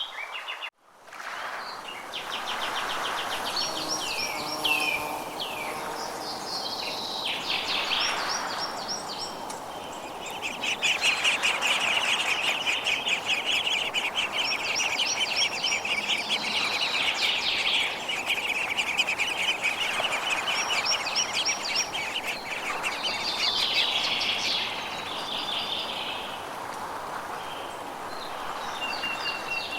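Forest birdsong: several birds singing chirps and fast trills over a steady background hiss, with one long rapid trill in the middle. The sound cuts out for a moment just under a second in and fades back in.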